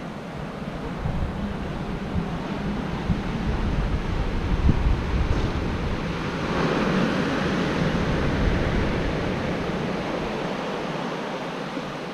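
Ocean surf washing onto the beach, with a wave surging louder about halfway through and slowly fading, and wind gusting on the microphone.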